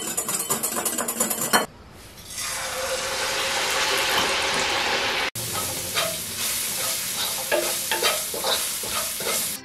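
A wire whisk beating egg white in a glass bowl, rapid strokes against the glass; it stops suddenly, then a cornstarch-coated pork chop deep-frying in hot oil with a steady hiss that builds up. About five seconds in it cuts to minced garlic and sliced jalapeño sizzling in a pan, stirred and scraped with a wooden spatula.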